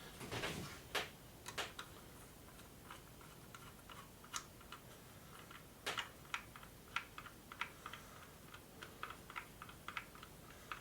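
Irregular light clicks and taps of a screwdriver driving small screws through a phone-case mounting plate into nylock nuts, with the small parts being handled.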